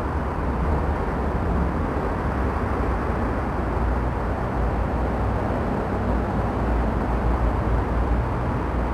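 Steady low rumble and hiss of outdoor ambient noise, with no distinct events.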